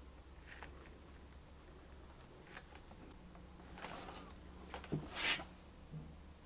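Small wooden pieces handled on a bare cello back: a few faint taps and clicks, then a brief scrape about five seconds in as a wooden block is set on the newly glued maple soundpost patch.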